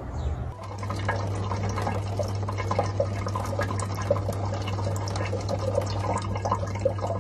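Water running from a tap, with a patter of drips and splashes over a steady low hum.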